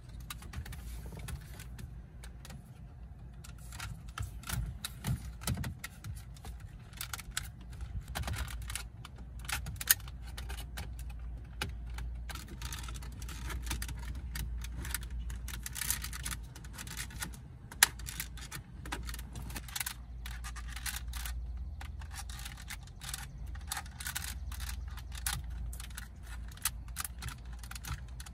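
Plastic trim tool prying at the clips of a BMW F30 AC/radio control panel: a busy run of small plastic clicks, taps and scrapes as the tabs are worked loose, with two sharper clicks about ten and eighteen seconds in, over a low steady hum.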